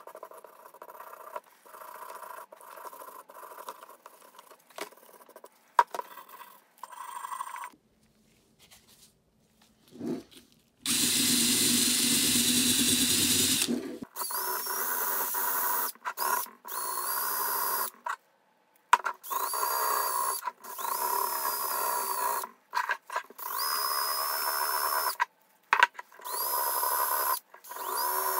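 A hand brush scrubbing a rusty pipe wrench part in a degreaser tub for the first few seconds. Then a cordless drill fitted with a brass wire cup brush runs against the wrench jaw to strip rust: one longer run, then about seven short trigger bursts, each starting with a rising whine.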